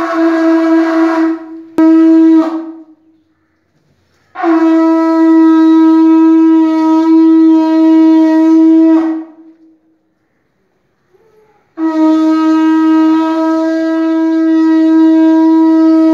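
Conch shell blown in three long, steady blasts on one pitch, the first breaking off briefly just under two seconds in, the second and third each lasting about five seconds; the conch is sounded to mark the puja at the lamps.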